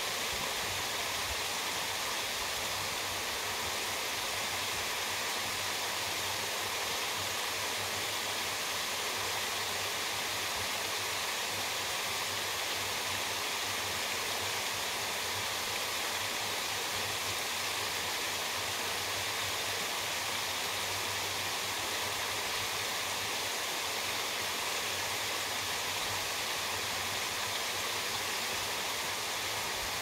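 Steady rush of water from Apple Orchard Falls, a waterfall cascading down a couple hundred feet, an even unbroken roar of falling water.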